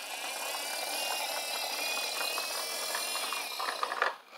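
Toy truck's friction-motor gears whirring steadily as it is rolled across carpet, with a few clicks just before the whir stops near the end.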